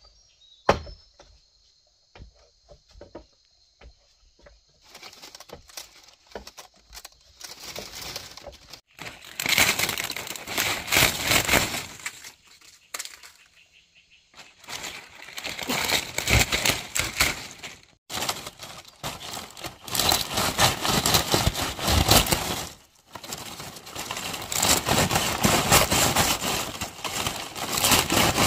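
Dense rustling and crackling in swelling bursts with brief pauses, starting about five seconds in. A faint, steady high-pitched insect drone is heard before it.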